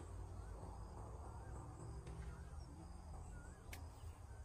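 Faint outdoor ambience: a steady high-pitched insect drone over a low rumble, with a few short wavering chirps and two sharp clicks.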